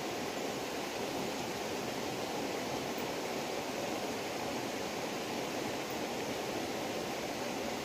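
Steady, even rushing hiss with no distinct sounds in it.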